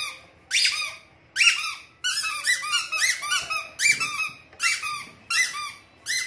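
Rubber squeeze toys, a chick and a dinosaur-like figure, squeaking as they are squeezed: a string of short rising-and-falling squeaks, about two a second.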